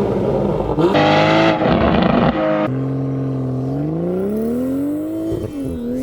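BMW M240i (G42) with a B58 turbocharged inline-six running through a Valvetronic Designs valved exhaust. It makes a loud, hard-revving run for about the first two and a half seconds. After an abrupt change, the exhaust note climbs steadily in pitch as the revs rise, then drops back near the end.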